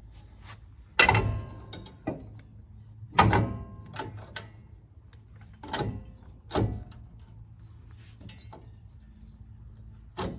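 Five irregular metal clanks with a short ring, the two in the first few seconds the loudest: tools and parts being handled at the Jeep's rear axle end.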